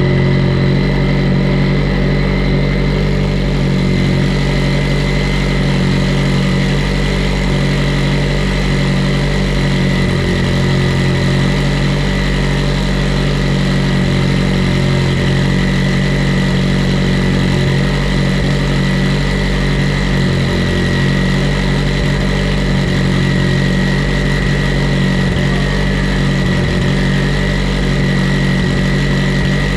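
Mitsubishi Evo 8's built 2.0-litre turbocharged four-cylinder running steadily on a dyno, holding one speed without revving.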